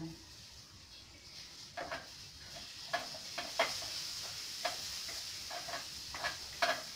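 Paintbrush dipped into a small metal paint can and tapped and scraped against its rim: a scatter of light clicks and knocks over a faint steady hiss.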